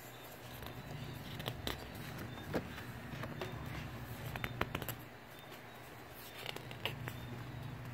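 Light scattered taps and clicks of stiff card pages being handled and touched, over a low steady hum.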